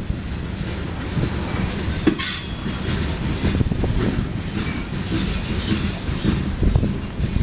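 BNSF coal train's hopper cars rolling past: a steady rumble of wheels on rail with irregular clickety-clack over the rail joints, and a brief high hiss about two seconds in.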